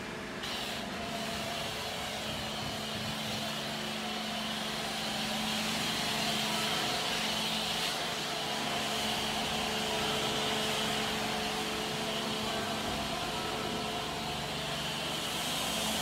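High-pressure washer running: a steady hiss of water spray, which comes in about half a second in, over the even hum of the washer's pump motor.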